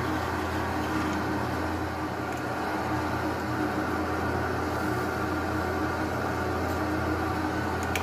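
Lathe running steadily with the dowel spinning in its chuck, giving an even motor hum.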